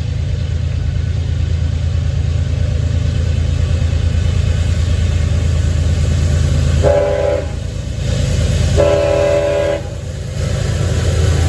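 Diesel freight locomotives running with a steady low rumble. Partway through, the locomotive's air horn sounds twice: a short blast, then a longer one.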